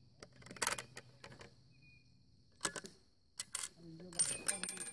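Clicks and clacks of a Remington 722 bolt-action rifle's bolt being worked by hand, a few separate strokes spaced a second or two apart. Near the end comes a quick run of ringing metallic clinks.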